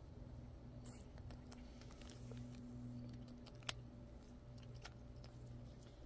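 Faint scattered clicks of a chipmunk handling and biting an in-shell peanut, the sharpest about two-thirds of the way in, over a low steady hum.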